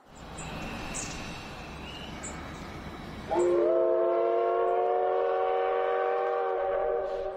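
Train whistle blown once, a long chord of several notes held for nearly four seconds and starting about three seconds in, over a rushing noise from the moving train.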